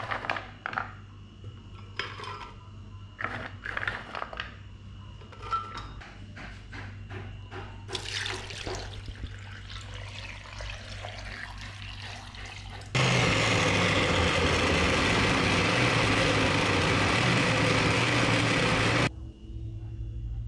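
Countertop blender grinding chunks of coconut flesh with water to make coconut milk. First come scattered knocks and clinks as the glass jar is handled, then a hiss of liquid being poured in. About 13 seconds in, the motor starts, runs loud and steady for about six seconds, and cuts off suddenly.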